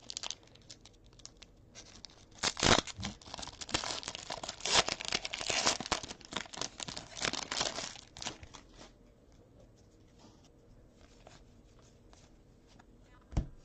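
A 2017 Panini Playoff football trading-card pack being wrestled open: its wrapper tearing and crinkling in a run of crackling rips for several seconds, followed by quieter rustles and ticks as the cards are handled, and a single knock just before the end.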